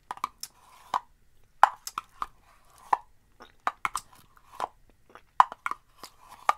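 Metal spoon scraping and clicking against a clear plastic tub as food is dug out, in about fifteen irregular sharp strokes.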